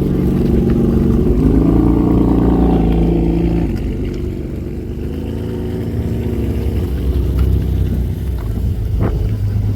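A car engine running close by, rising in pitch about a second in and settling lower after about four seconds. A short sharp click near the end.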